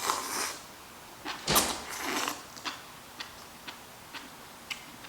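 Close-up eating sounds from a mukbang: a sharp click and noisy slurping or sipping of soup early on, then soft regular clicks about twice a second as she chews.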